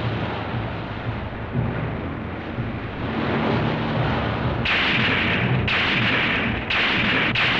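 Surf washing onto a beach: a steady rumbling hiss of waves, broken in the second half by four louder hissing stretches that start and stop suddenly, each about a second long.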